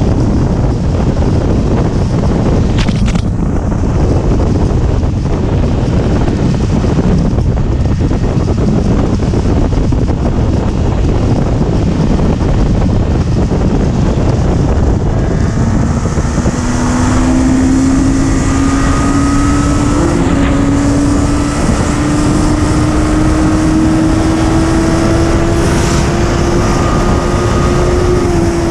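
Sport motorcycle at road speed: heavy wind rushing over the microphone, with the engine underneath. About halfway through a steady engine note comes through and climbs slowly as the bike gains speed, easing off slightly near the end.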